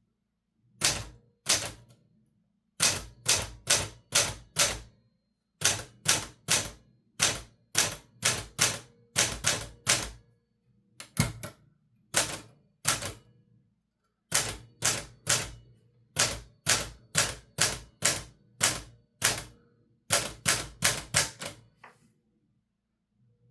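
Keys of a 1968 Olivetti Linea 88 manual typewriter being struck, sharp separate clacks of the typebars hitting the platen in uneven runs of about two to four a second with short pauses between words.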